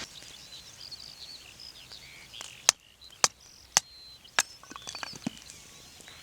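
Four sharp knocks about half a second apart, like a tool striking wood, over birds chirping outdoors.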